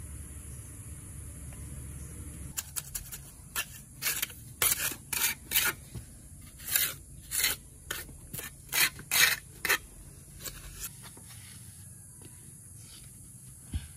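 A quick, irregular run of short, harsh scraping strokes lasting about eight seconds. A low steady hum stops just before the strokes begin.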